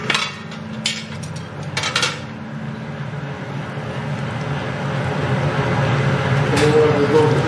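Wooden spatula knocking and scraping against a large aluminium pot while thick chili con carne is stirred: a few sharp knocks in the first two seconds and another near the end, over a steady low rumble.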